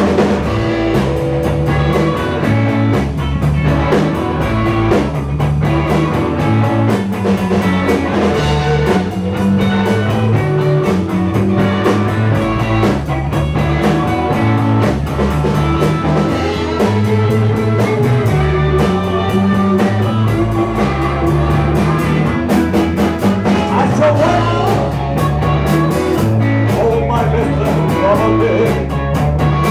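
Live blues-rock band playing: electric guitars over a repeating bass riff and drum kit, with singing.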